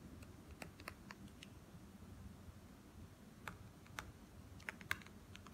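Faint, irregular taps and clicks of a stylus tip on an iPad's glass screen during handwriting, with a few quick taps together near the end.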